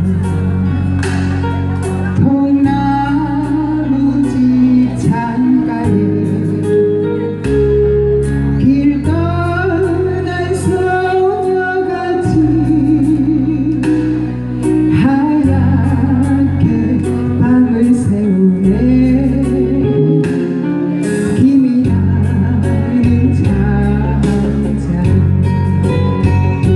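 A woman singing a Korean trot song with vibrato over a backing band accompaniment with a steady beat.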